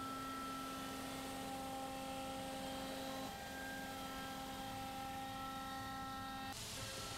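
CNC milling machine face-milling an aluminium plate: a steady, many-toned whine from the spindle and cutter that breaks briefly about three seconds in. Near the end a loud hiss joins in.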